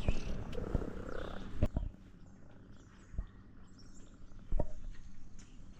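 A cat purring, a low pulsing rumble that is loudest in the first two seconds and then fades, with a few short soft knocks.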